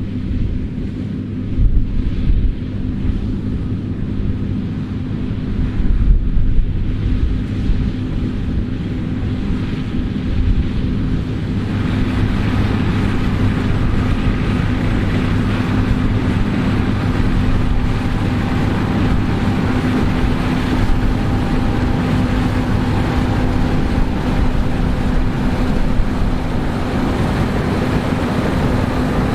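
Combine harvester working a wheat field: a steady engine drone with a low hum, growing louder and fuller about twelve seconds in. Wind buffets the microphone in the first several seconds.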